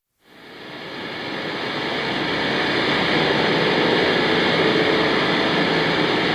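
A steady rushing noise, like wind or a jet's rumble, fading in from silence over about two seconds and then holding steady, with a few faint steady tones in it.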